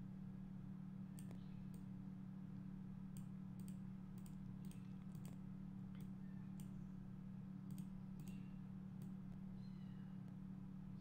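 Computer mouse clicking, a dozen or so short, irregularly spaced clicks, over a steady low electrical hum.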